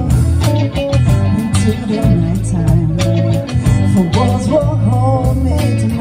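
Live band playing a song: electric guitar, bass guitar and drum kit, with a singer's voice over them.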